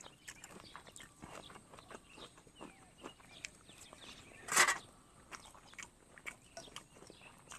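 A person chewing food, with many small crunches and wet mouth clicks. A little past halfway through comes one short, loud rush of noise from the mouth.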